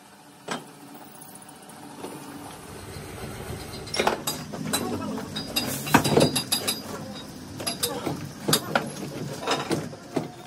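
Metal workshop clatter: one knock about half a second in, then from about four seconds a run of sharp metallic clinks and knocks over a low hum.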